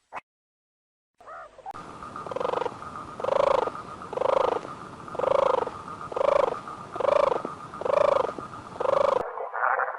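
An animal calling over and over, seven arched calls about a second apart, over a steady background hum.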